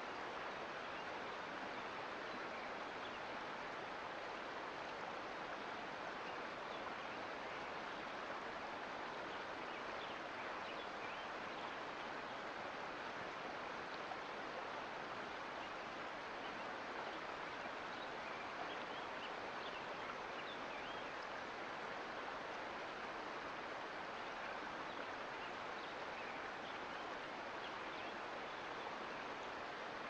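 Mountain creek running water: a steady, unchanging babble and rush with fine splashy detail throughout.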